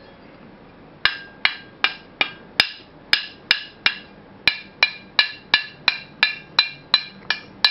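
A metal tool tapping on a small metal casting, just under three strikes a second with a short pause about halfway, each strike ringing briefly at the same pitch.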